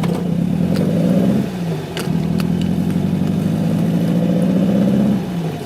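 VW Beetle 1600's air-cooled flat-four engine pulling under load, heard from inside the cabin. The revs climb, dip briefly about a second and a half in, then climb again and fall away near the end, like gear changes while accelerating.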